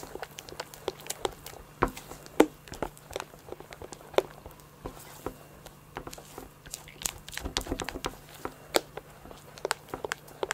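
Spatula folding a thick, wet berry mousse mixture of yogurt, whipped cream and berry purée in a glass bowl: soft squelching with irregular clicks and taps of the spatula against the glass.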